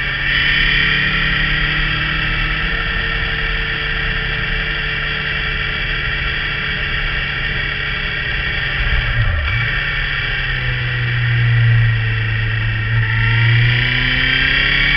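Motorcycle engine and exhaust while riding: a steady engine note, a brief dip in pitch about nine seconds in, then a lower, louder note, and the pitch rising again near the end. Wind rush runs under it.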